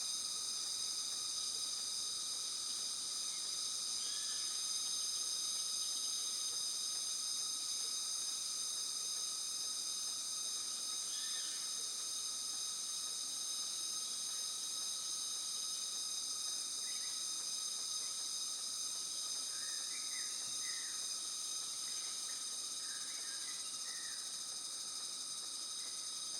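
Steady chorus of tropical forest insects, several high tones held unbroken, with a few faint short bird calls scattered through it, most of them bunched together near the end.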